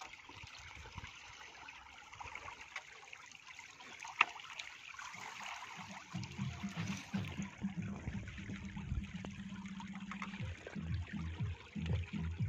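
Water trickling and dripping from a bamboo lift net (dharma jal) as it is raised out of shallow floodwater, with small fish splashing in the mesh. There is one sharp knock about four seconds in, and an uneven low rumble from about halfway through.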